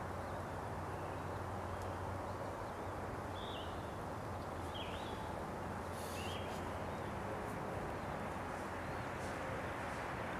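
Steady outdoor background rumble and hiss, with three short, high, downward-slurred bird chirps spaced over a few seconds in the middle.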